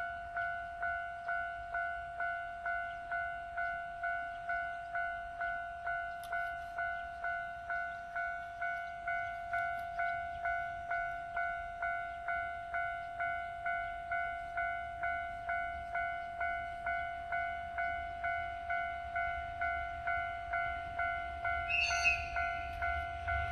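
Railway level crossing warning bell ringing steadily, about two ringing strikes a second: the crossing is closed for the approaching train. Near the end a brief louder, higher-pitched sound cuts in, and the low rumble of the DE10 diesel locomotive begins to rise.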